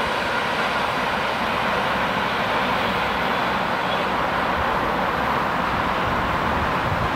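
ED4M DC electric multiple unit receding into the distance, its faint motor tones fading early on and its rolling noise merging into a steady background rush.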